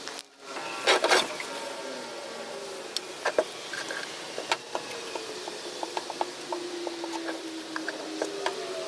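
A small motor running with a slowly wavering pitch, with scattered clicks and knocks and a louder noisy stretch about a second in.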